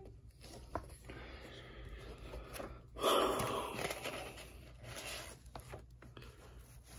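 Glossy magazine pages being handled and turned, a soft paper rustle with a louder rush about three seconds in.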